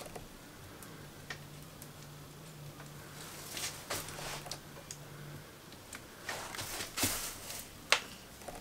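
Scattered light clicks and taps with soft scraping as a hand spreader works wet epoxy resin across a worktop, the sharpest click near the end.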